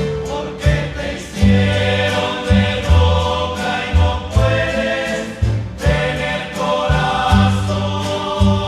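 A rondalla playing a slow romantic song: guitars over a bass line that moves in a steady rhythm, with sustained choir-like voices without words.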